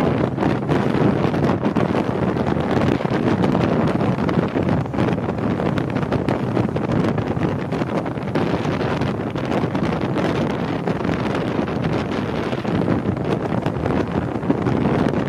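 Wind buffeting the microphone at the bow of a rigid hull inflatable boat under way, mixed with the steady rush of the boat moving over the water. The noise is loud and rough and keeps fluttering up and down.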